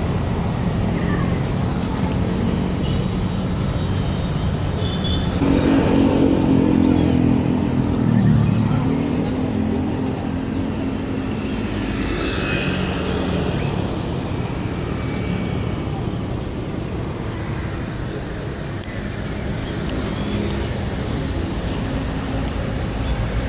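Road traffic heard from a moving bicycle: a steady rumble of traffic and wind on the microphone. A motor vehicle's engine passes close by from about five seconds in, loudest for a few seconds, its note dropping as it goes past.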